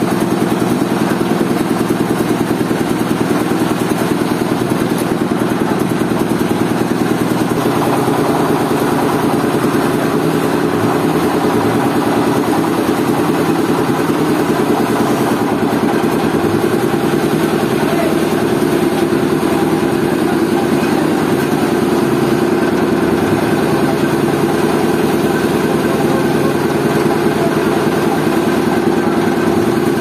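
Engine of the sawmill machinery running steadily at idle, its pitch shifting slightly about seven seconds in.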